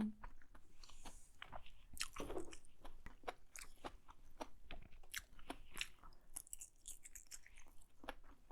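A person chewing a mouthful of black bean noodles with mushrooms: a steady run of small wet mouth clicks and smacks.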